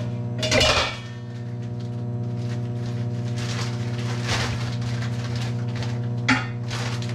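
Steady electrical hum of a running kitchen appliance, with a loud clatter of pans on the stovetop about half a second in and lighter knocks of a pan and spatula around four and six seconds in.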